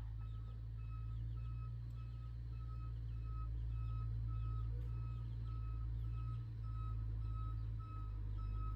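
A vehicle's reversing alarm beeping steadily, about two beeps a second, over the low rumble of its engine running.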